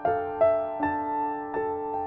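Gentle background music on a piano-like keyboard: single notes struck in an even run, about two and a half a second, each ringing on and fading.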